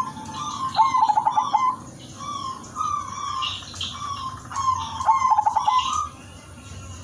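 Silver zebra dove (perkutut) singing: soft coo notes with a rapid stuttering run of short pulses about a second in and again about five seconds in. Other small birds chirp at a higher pitch in the background.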